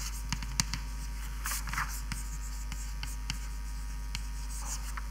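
Handwriting: a series of short taps and scratchy strokes of a writing implement, over a steady low hum.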